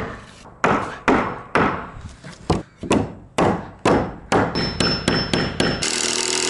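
A framing hammer knocking a Warmboard subfloor panel into place through a wooden beater board, a string of sharp knocks about two a second that come closer together near the end. About six seconds in, a cordless drill starts up, driving a screw into the panel seam.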